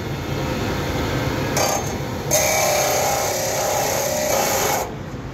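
Tiến Đạt electric abrasive cut-off saw running, its disc briefly touching the metal at about one and a half seconds, then grinding through it with a high whine for about two and a half seconds before the cut stops suddenly.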